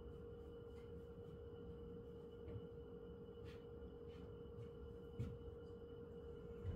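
A faint steady hum at one pitch, with a few light ticks and taps of a paintbrush working oil paint.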